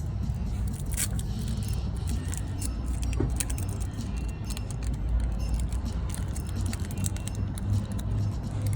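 Trading cards and a foil booster-pack wrapper being handled: light scattered clicks and rustles over a steady low rumble that grows louder near the end.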